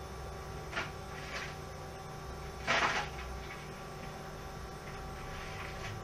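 Steady low electrical hum with a few short, faint rustling or clattering noises, the loudest about halfway through.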